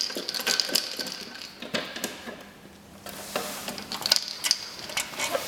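Clicks and light knocks of a vinyl cutter's cover and parts being handled. They come thick at first, die down about two seconds in, then return as a few sharper clicks.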